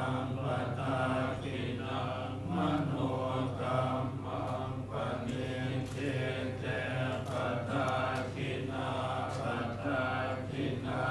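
Thai Buddhist monks chanting together in a steady, rhythmic recitation.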